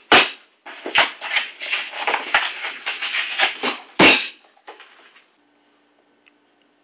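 Cardboard box-wine carton being torn open and its plastic wine bag handled. A knock, then a dense run of ripping and crinkling, and another sharp knock about four seconds in. After that it goes nearly quiet, with a faint low hum.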